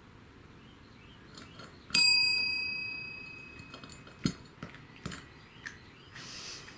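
A chrome desk service bell struck once about two seconds in: a bright ding that rings on and fades over about two seconds. A few light knocks follow.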